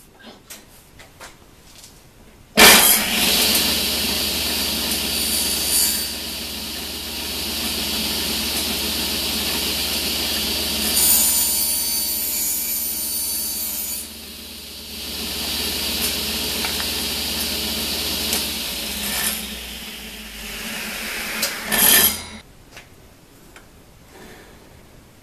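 Table saw switched on about two and a half seconds in and running about twenty seconds, its blade cutting up through a plywood zero-clearance throat insert held down by a board, the cutting sound changing in level several times; switched off near the end. A few light knocks come before it starts.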